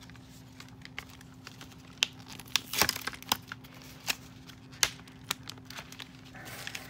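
Plastic and cardboard doll packaging crinkling and clicking as it is handled and staples are worked out of the doll's hair. There is a scatter of sharp clicks, the loudest about three seconds in, over a faint steady hum.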